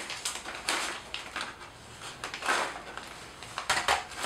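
A plastic vacuum-sealer bag crinkling in several short bursts as it is opened and handled, while freeze-dried diced chicken pieces are poured into it from a saucer.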